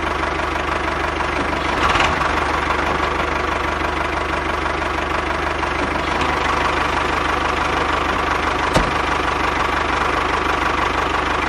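Engine running steadily with a knocking beat, with a sharp click near the end.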